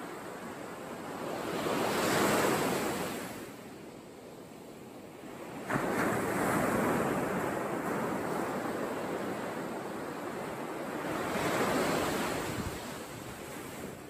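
Sea surf washing onto a sandy beach, the hiss swelling and easing in three slow surges, with some wind.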